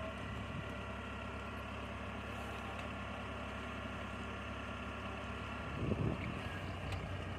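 Kubota DC70 combine harvester's diesel engine running steadily, with a brief louder low surge about six seconds in.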